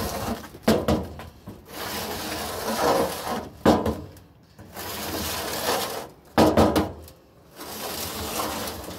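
Grill scraper dragged across a metal grease drip tray, scraping old dried grease droppings off into a trash bin: a run of rasping strokes, each a second or two long, with a few sharp knocks.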